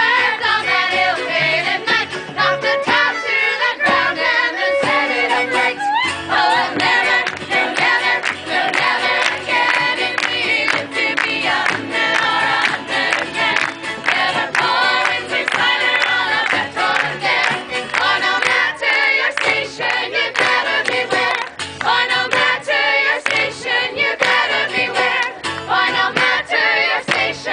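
Several voices singing a tavern song together, set to music with frequent sharp beats.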